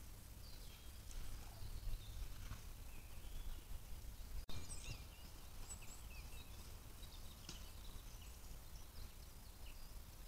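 Faint songs and chirps of several small woodland birds over a low, steady rumble of wind on the microphone. A single sharp click about four and a half seconds in.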